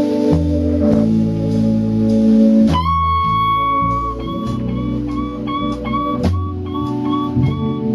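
Background music: an instrumental blues guitar passage, with sustained chords and bass giving way about three seconds in to a run of single high guitar notes.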